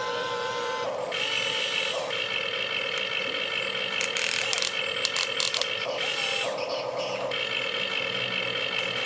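Toy remote-control excavator's small electric gear motors whining as the cab swings and the boom and bucket move, starting and stopping every second or so, with a few short clicks about four to five seconds in.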